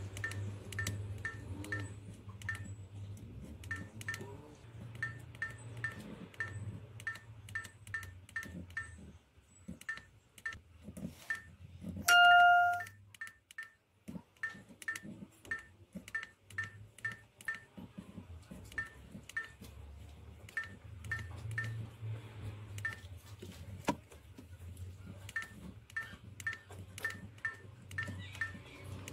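Dash cam's key beeps: short high electronic beeps, one with each button press, coming in quick runs of two or three a second as the settings menu is scrolled. About twelve seconds in, one louder, lower beep lasts about half a second.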